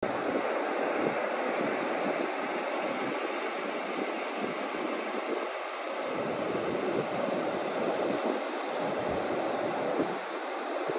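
Steady rushing noise of a beach, the wash of surf and wind, with no distinct events.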